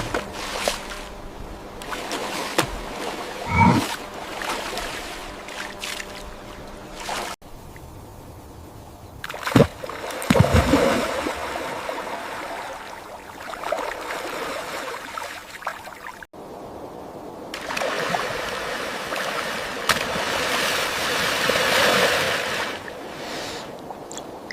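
Water splashing and trickling, with heavier splashes about 3.5 seconds in and again around 10 seconds. The sound breaks off abruptly twice as the audio cuts between clips.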